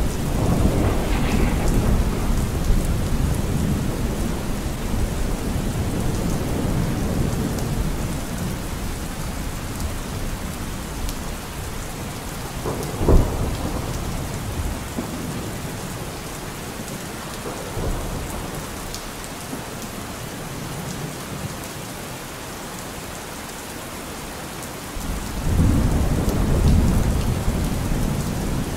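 Steady rain with rolling thunder: low rumbles at the start and again near the end, and one sudden sharp crack about halfway through.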